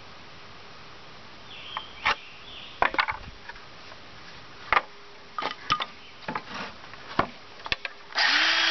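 Scattered wooden knocks and clatters as pallet boards are handled and set down. Near the end, a Black+Decker cordless electric chainsaw starts up and runs steadily.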